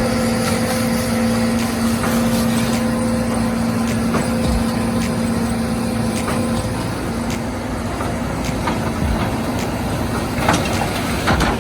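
Engine of a working farm machine running steadily with a constant droning hum, with a couple of sharp clattering knocks near the end.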